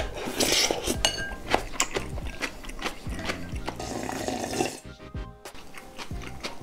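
Slurping a mouthful of noodles in cold soybean-milk broth, then drinking the broth from a glass bowl for about a second, over background music.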